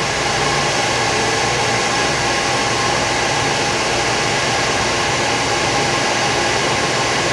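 Quest PowerHeat CHH-300 heater's machinery running with a steady whirring hiss and a faint hum.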